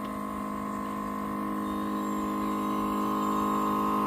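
Dreame X50 robot vacuum's docking station running its mop-pad wash cycle: a steady motor hum with a higher whine, slowly getting a little louder.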